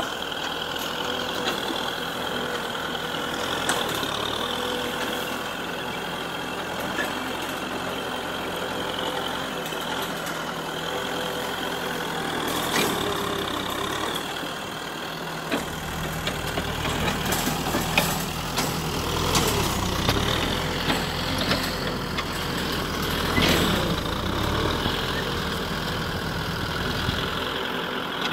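Kubota M6040SU tractor's diesel engine running under load as its front blade pushes soil along an earth bank. The deep engine sound gets stronger about halfway through, with a few sharp knocks.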